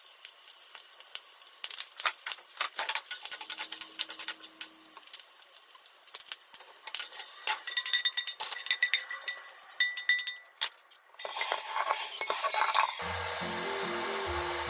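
Sausage and green pepper sizzling in a frying pan while they are stirred, with many clicks and clinks of the utensil against the pan. A mayonnaise squeeze bottle squirts briefly into the egg bowl about four seconds in. Background music comes in near the end.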